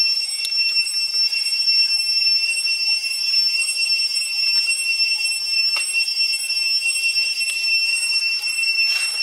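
Cicadas droning: a steady, shrill, unbroken whine that holds one pitch.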